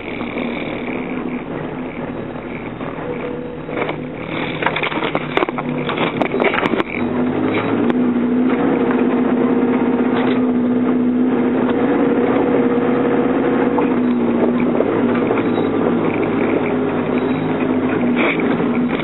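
Off-road SUV's engine running under load, heard from inside the cab while driving over a rough dirt track. A run of knocks and rattles comes from about four to seven seconds in. After that the engine is louder and holds a steady pitch.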